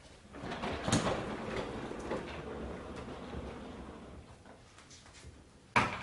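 Handling noise from a Kärcher SE 5.100 spray-extraction vacuum as it is lifted by its handle: a knock about a second in, then rustling and scraping of the plastic body and hose that fades away. A sharp knock follows near the end.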